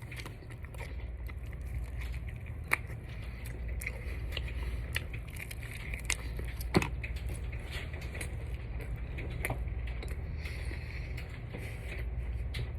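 Chewing and handling a sauce-coated chicken wing: scattered small clicks, crackles and rustles, two sharper clicks standing out, over a steady low hum.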